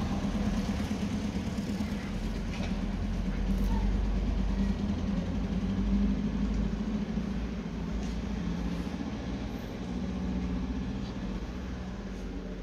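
A motor vehicle's engine running steadily, a low hum that eases off slightly near the end.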